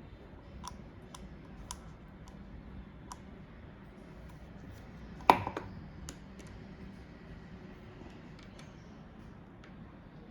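Small screws and a circuit-board adapter being handled and fitted by hand: scattered light clicks, with one sharp clack a little over five seconds in.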